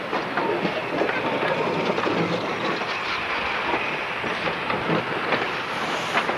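Moving train: steel wheels clattering over rail joints with a steady running noise.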